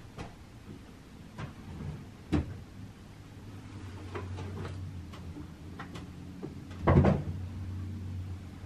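A few scattered knocks and clicks, like a cupboard or door being handled, over a low steady hum. A sharp knock comes about two seconds in, and the loudest is a quick cluster of knocks about seven seconds in.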